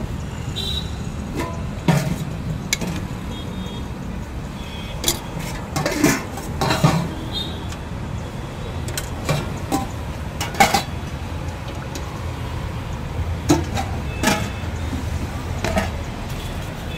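Serving spoons and lids clinking and knocking against stainless steel food containers as rice and curries are dished out, about ten scattered clinks. Underneath, a steady low rumble of road traffic.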